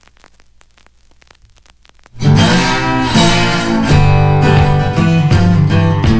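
Background music with a strummed acoustic guitar, starting abruptly about two seconds in after a quiet opening.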